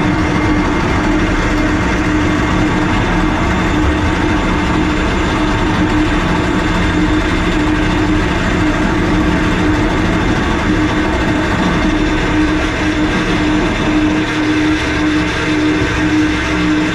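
Electric anchor windlass running steadily, paying out chain and then three-strand rope up through the aluminium anchor well. It makes a steady motor hum with one strong held tone, heard from inside the well.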